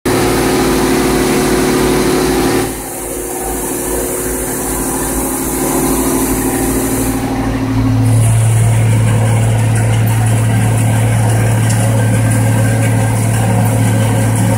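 Tractor engine running steadily from inside the cab while it pulls a forage harvester chopping a windrow of pea and barley. The upper hiss drops off suddenly about three seconds in, and a heavier, deeper hum comes in about eight seconds in and holds.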